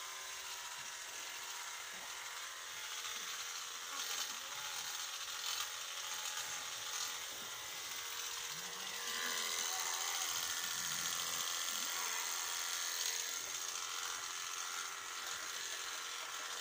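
Electric sheep-shearing clippers running steadily as they cut through a sheep's fleece, a little louder for a few seconds in the middle.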